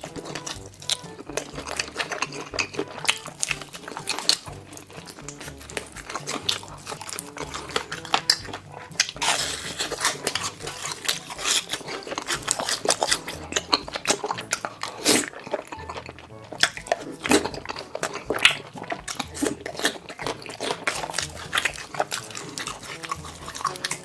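Close-miked mukbang eating: repeated crunching bites and chewing of food, over a background music track with a steady bass line.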